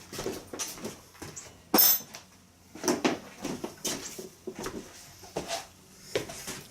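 Tools and small metal parts being handled: a run of irregular clinks and knocks, the loudest about two seconds in.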